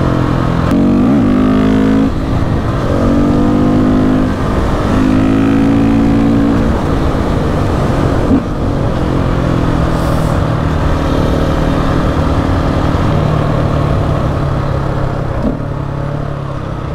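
KTM 690 SMC R single-cylinder engine under way, its pitch climbing and dropping back several times as the rider pulls through the gears, then holding a steadier note that slowly sinks toward the end, with wind rushing over the microphone.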